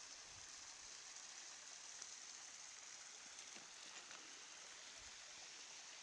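Near silence: the faint steady hiss of a small mountain stream running, with a few soft clicks.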